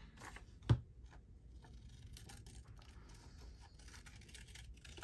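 Scissors snipping paper in short, faint cuts, fussy-cutting around a printed image. About a second in there is a single sharp knock.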